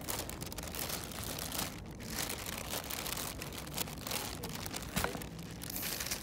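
Plastic carrier bag and takeaway food packaging crinkling and rustling as hands unpack them, in an irregular run of crackles.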